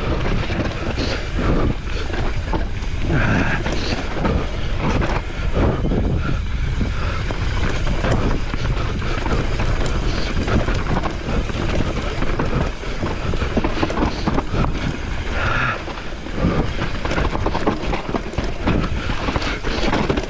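Wind buffeting the microphone over the rumble of a mountain bike's tyres on a rough trail, with frequent knocks and rattles from the bike.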